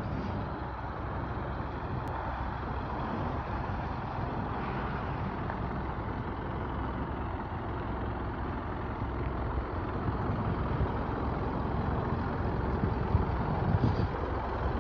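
Isuzu Elf fire truck's engine running steadily at idle, a low rumble that slowly gets louder toward the end.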